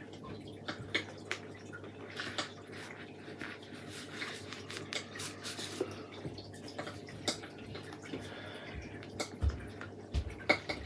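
Light, irregular clicks and rustles of small objects being handled, over a faint steady low hum.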